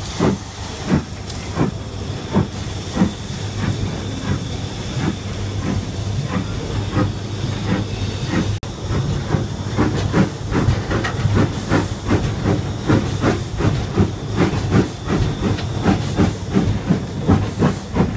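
LNER B12 4-6-0 steam locomotive working under steam, heard from its footplate: regular chimney exhaust beats over a steady hiss of steam. The beats come about two a second at first and quicken in the second half as the engine picks up speed.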